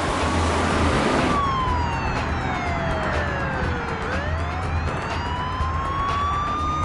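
Police car siren in a slow wail, sliding down in pitch and then back up, with car engine and tyre noise rushing under it for about the first second and a half.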